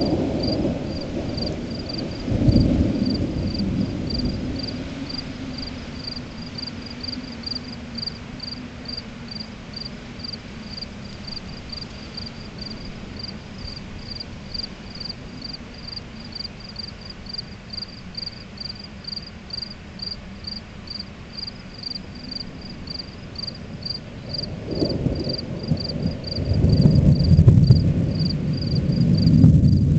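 Crickets chirping steadily, about two chirps a second, under the rumble of thunder: a roll fading over the first few seconds, then a louder roll of thunder from about 25 s in to the end.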